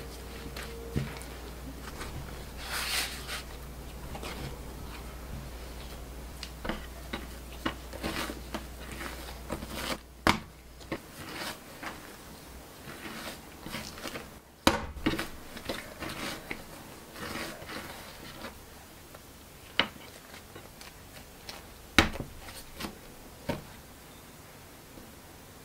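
Bread dough for hamburger buns being worked by hand: sticky dough squishing and scraping in a glass bowl, then pressed and kneaded on a wooden board, with a few sharp knocks, the loudest just past halfway and again later on.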